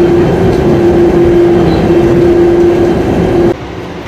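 DFW Skylink automated people-mover train running at speed, heard from inside the car: a steady rumble with a constant hum. It cuts off abruptly about three and a half seconds in.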